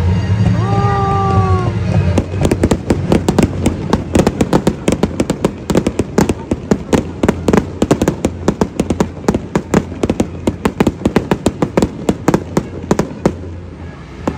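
Fireworks going off in a rapid barrage of sharp cracks, many a second, starting about two seconds in and stopping shortly before the end. Music plays underneath at the start.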